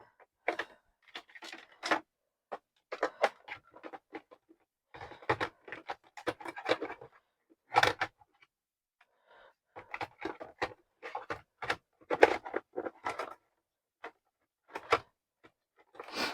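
Irregular knocks, clicks and rattles of a cordless drill and its parts being handled and pushed into their storage box.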